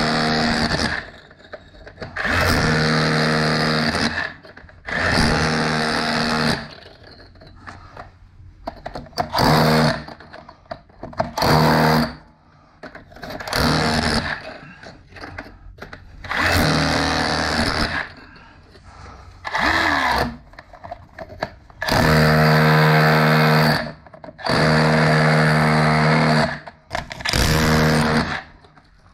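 DeWalt XR cordless SDS hammer drill with a flat chisel bit chipping out brick, run in short bursts of one to two seconds about a dozen times with short pauses between.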